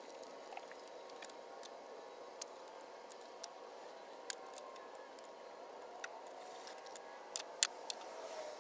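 A handful of light, sharp metallic clicks from hand tools (socket, extension and ratchet being handled on a spark plug), spaced irregularly and bunched together near the end, over a steady low background hum.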